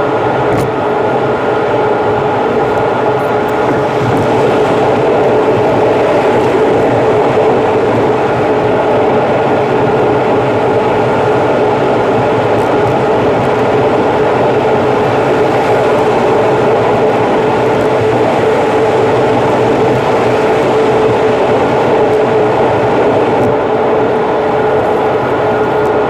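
Steady car road and engine noise at expressway speed, played back about three times faster than real time. It is a constant rushing noise with a steady hum through it and no breaks.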